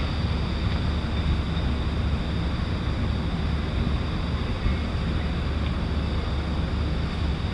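Steady low rumble with wind on the microphone, unchanging throughout.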